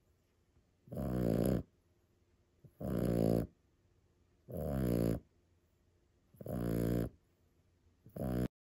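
American bully puppy snoring in her sleep: five loud, rhythmic snores, one roughly every two seconds, each with a rasping, pitched tone. The last snore is cut short near the end.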